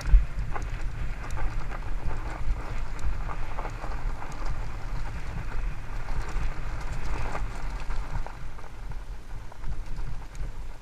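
Haibike Sduro FullFat Six fat-tyre electric mountain bike descending a steep, rocky dirt singletrack: the tyres crunch over loose stones and the bike clatters with scattered sharp clicks. Wind rumbles steadily on the helmet-mounted microphone.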